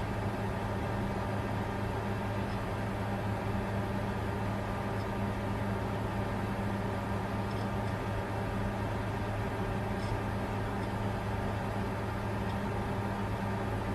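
Bitcoin mining computer running steadily: a constant whir of cooling fans over a low, even hum.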